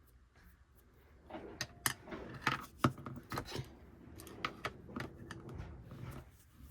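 A run of irregular sharp clicks, taps and knocks, starting about a second in and going on, unevenly spaced, for several seconds.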